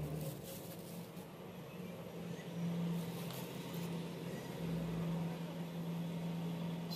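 A steady low hum, as of a running motor, with faint soft rustles over it.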